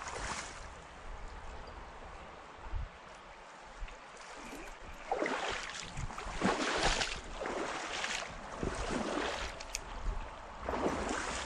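Water of a shallow, rocky trout stream running, with a string of louder rushing swells from about halfway through.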